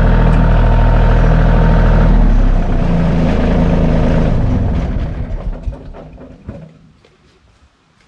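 Tractor engine running steadily. Its note drops about two seconds in, and about five seconds in it is shut off and runs down to a stop, its firing pulses slowing as it dies.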